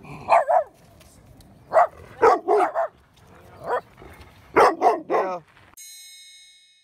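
A dog barking, about ten sharp barks in three or four quick clusters. Near the end a bright ringing chime sounds for about a second and cuts off.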